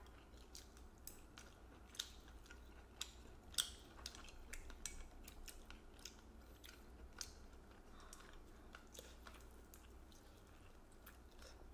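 Two people eating noodle soup with chopsticks: faint chewing, with scattered light clicks of chopsticks against bowls.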